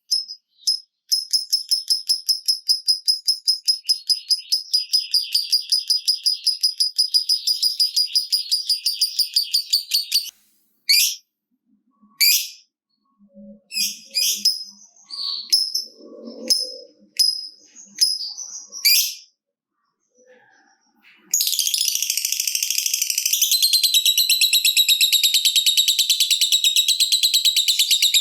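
Lovebird (Agapornis) 'ngekek': a long, fast chattering trill of high repeated notes, about five a second. Around ten seconds in it breaks into scattered single chirps and calls, and a dense rapid trill starts again about two-thirds of the way through.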